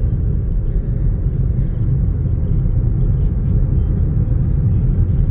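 Steady low rumble of a car driving along a road, tyre and engine noise heard from inside the cabin.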